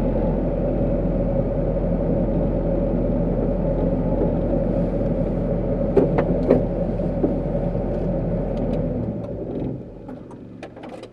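An engine running steadily, with a few sharp knocks about six seconds in. The engine sound drops away about nine to ten seconds in, leaving faint clicks.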